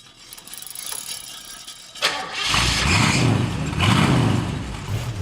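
A car engine starts up suddenly about two seconds in, then swells in speed twice.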